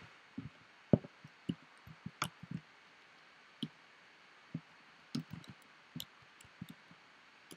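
Computer keyboard being typed on: short sharp key clicks in irregular runs with brief pauses between.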